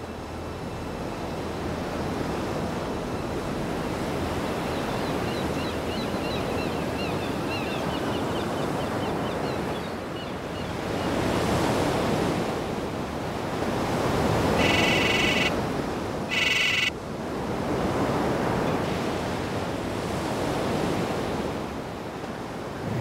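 Open-sea waves and wind: a steady rushing wash of water that swells and ebbs. Two short high-pitched tones or calls cut in about two-thirds of the way through.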